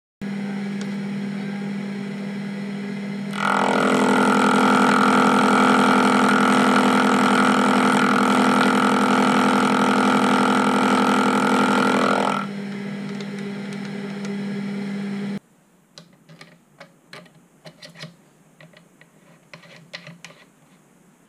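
Proxxon FF 230 mini mill running with a steady motor hum; about three seconds in the end mill cuts into the metal part, milling a chamfer, and the sound grows much louder with a ringing whine until about twelve seconds in. The mill shuts off abruptly about fifteen seconds in, followed by faint clicks and taps of hands handling the setup.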